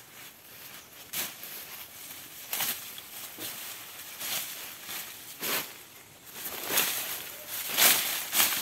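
Footsteps crunching through dry leaf litter and grass, with sugarcane leaves rustling as they are brushed aside, a burst about every second. Near the end, dry cane leaves are grabbed by hand and rustle loudest.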